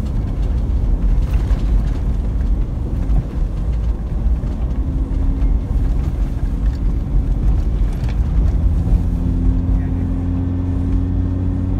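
Inside a moving car's cabin: steady low rumble of engine and road noise while driving. A steady engine hum comes through more clearly from about halfway through.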